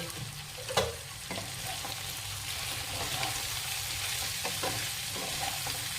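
Chicken pieces coated in spice powders sizzling steadily in hot oil in a pan while being stirred, with a few short knocks of the spoon against the pan.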